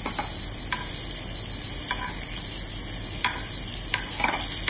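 Daikon radish slices frying in butter in a frying pan, a steady sizzle as they brown. A few light clicks of a metal spoon against the pan as the hot butter is spooned over them.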